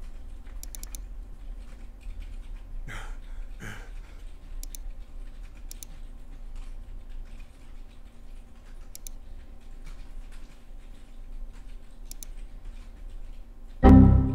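Scattered soft clicks at a computer keyboard and mouse over a low steady hum, then near the end a loud Windows error chime, a short organ-like chord, as a runtime error dialog pops up.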